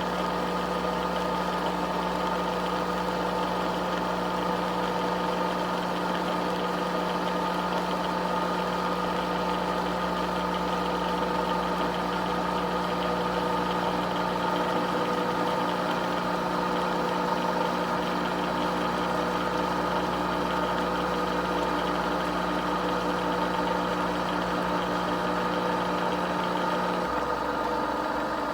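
Nespresso Vertuo Next machine running a brew cycle: its motor and pump give a steady, even hum with several fixed tones, which shifts in pitch near the end.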